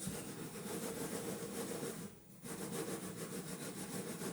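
Rapid, rhythmic scraping in two stretches, broken by a short pause about two seconds in.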